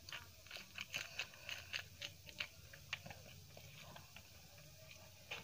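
Close-miked eating sounds: a mouthful of lemon rice and dal with a green chilli being chewed, with many quick wet clicks and smacks, dense for about the first three seconds, then sparser.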